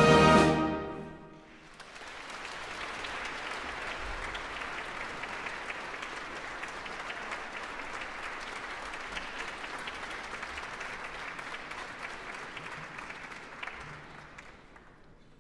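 A wind band's closing chord rings out and breaks off about a second in, then the audience applauds steadily for about twelve seconds, fading away near the end.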